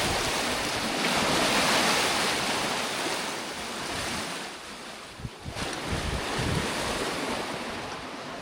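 Sea water rushing and washing around a sailing boat under way, with wind buffeting the microphone. The rush swells early on and eases about halfway through, with a few low gusts.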